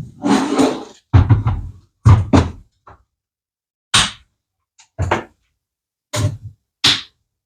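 Tools and parts being handled during a vehicle teardown: a string of separate knocks and clunks, roughly one a second, some with a heavy low thud.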